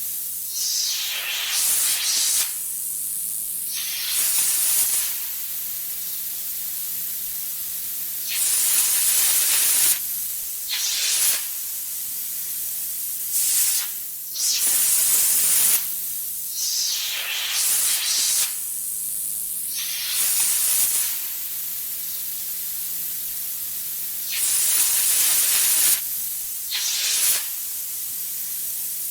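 Iguana hissing: a series of breathy hisses, some short and some lasting a second or two, over a steady background hiss with a faint low hum.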